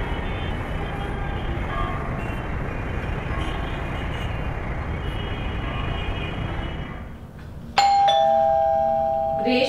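Steady city traffic noise, then about eight seconds in a two-tone doorbell chime: a higher note followed by a lower one, both left ringing.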